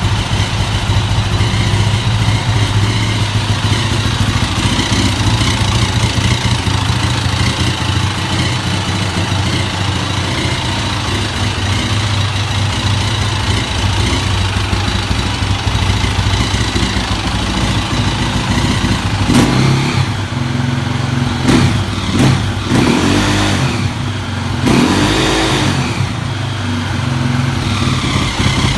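KTM EXC enduro motorcycle engine idling steadily, then blipped several times from about two-thirds of the way in, each rev rising and falling. It makes a noise that the owner takes for the sign of some defect.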